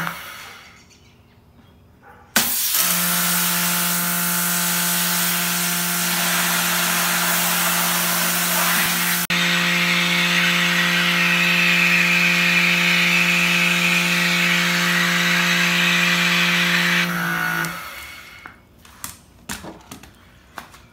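Electric pressure washer running, its motor and pump humming with a steady tone under the hiss of a jet from a white 40-degree tip spraying into a filling 5-gallon bucket. It starts abruptly about two seconds in and stops near the end, followed by a few light clicks.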